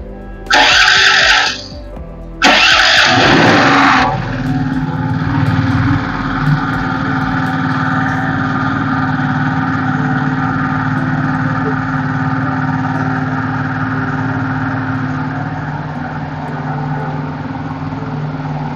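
Firman portable generator's small single-cylinder engine, fed on LPG through a dual-fuel carburetor with the petrol supply disconnected, being cranked in short, loud bursts. On the second try, about two and a half seconds in, it catches and settles into a steady run.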